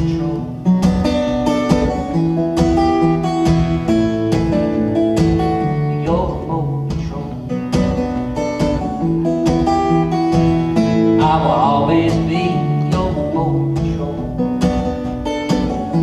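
Acoustic guitar strummed in a steady rhythm: the closing instrumental bars of a folk song played live.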